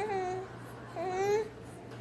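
A 45-week-old baby making playful babbling noises: two short, high-pitched vocal sounds, each about half a second long, that rise in pitch and then hold steady, the second about a second after the first.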